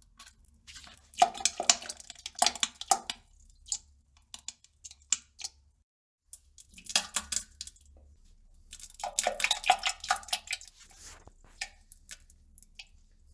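Poop sound effect: clusters of short crackling clicks, about a second in, again around seven seconds, and from about nine to eleven seconds.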